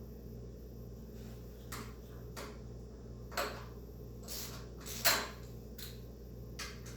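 About seven light clicks and clinks, irregularly spaced and the loudest about five seconds in, from a socket wrench loosening and removing the top oil fill cap on a pressure washer's axial pump.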